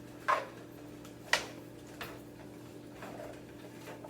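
A spoon knocking against a pan while stirring vegetables into cooked ground beef: two sharp knocks in the first second and a half, then a few fainter taps, over a steady low hum.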